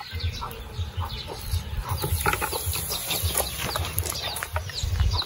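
Chickens clucking and chirping, a steady run of short, quick calls over a low rumble.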